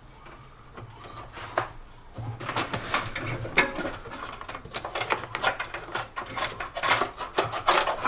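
Trailer wiring being pulled by hand through the van's plastic interior trim: irregular scraping, rustling and plastic clicks, growing busier from about two seconds in.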